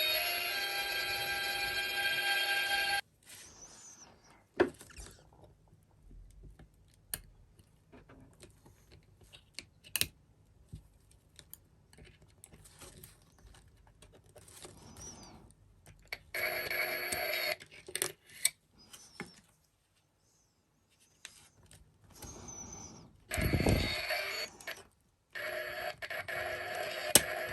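Sound module of a Keikyu 'Doremifa inverter' commemorative ticket playing its recording of the inverter's stepped do-re-mi scale through a tiny speaker. It cuts off about three seconds in and starts up again twice later. In the pauses there are small clicks and handling noise from the opened card.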